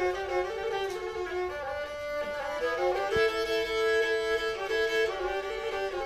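Black Sea kemençe, a small bowed fiddle, playing a folk tune, its notes often sounded two at a time.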